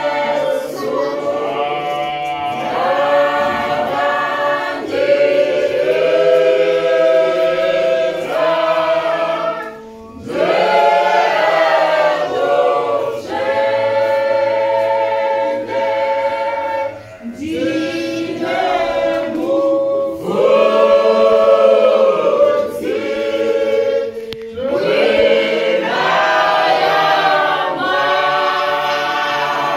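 Mixed church choir of women's and men's voices singing a hymn in Shona a cappella, in long phrases with short breaks about ten seconds in and again near seventeen and twenty-four seconds.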